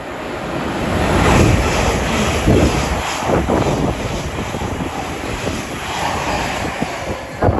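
Thameslink Class 700 electric train running through the station without stopping: a loud rush of wheels and air that builds over the first second or so and stays loud, with a series of wheel clatters.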